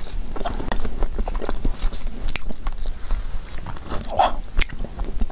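Close-miked eating: wet mouth clicks and smacks while chewing a spoonful of soft chocolate ice cream, with scattered sharp clicks throughout.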